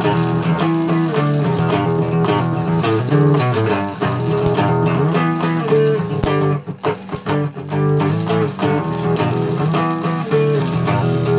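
Background music: a guitar-led track playing steadily.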